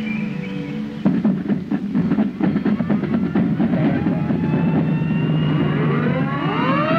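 Soft held music gives way, about a second in, to a drum roll and steady drumming. From about five and a half seconds, several rising siren wails build up and level off, overlapping one another.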